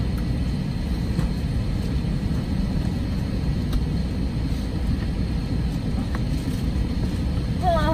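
Steady low rumble inside the cabin of an Airbus A320 on the ramp.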